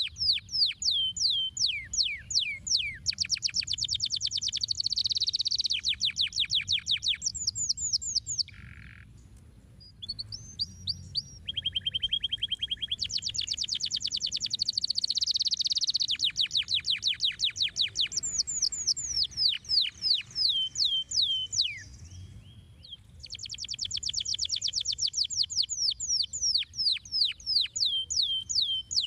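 Domestic canary singing a long song of fast trills and rapid repeated sweeping notes, with brief pauses about nine and twenty-two seconds in.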